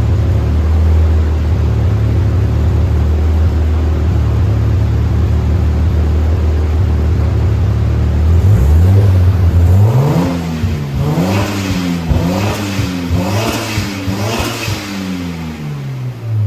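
Car engine running at a steady low speed, then revved about a second after the halfway point and blipped up and down about five times in quick succession, dropping back near the end.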